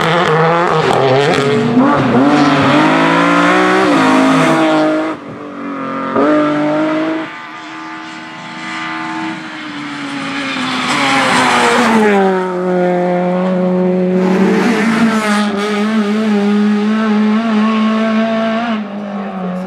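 Rally car engines revving hard on a tarmac stage, the pitch climbing and falling through gear changes as the cars brake for corners and power out of them. The sound drops back about five seconds in, builds up again, holds a steady high note in the second half and fades out at the end.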